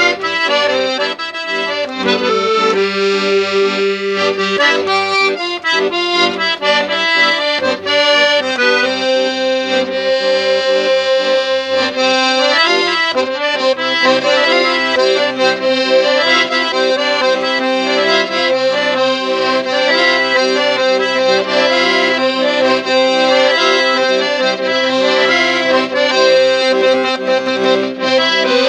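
Piano accordion played solo: a quick-moving instrumental melody on the right-hand keys over a steady, rhythmic accompaniment in the low register.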